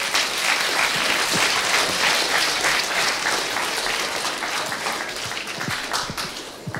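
An audience applauding, many hands clapping together, slowly dying down over the last couple of seconds.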